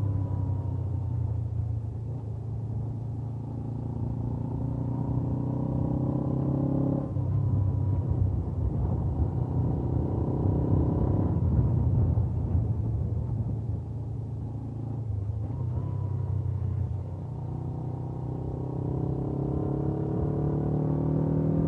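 Suzuki GS500F's air-cooled parallel-twin engine with its stock exhaust, heard from the rider's seat while riding. The pitch falls for the first several seconds, then the engine comes back on throttle and runs louder, eases off, and climbs steadily again near the end.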